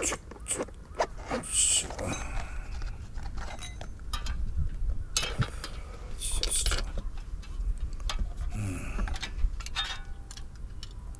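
Handling a folding camping gas stove: irregular metal clicks and clatter as it is lifted out of its soft case and its metal pot-support arms are unfolded on a metal camp table, with a few brief rustles of the case.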